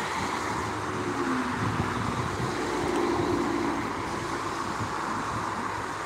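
Steady city street traffic hum with wind buffeting the phone's microphone, and a faint drone in the middle.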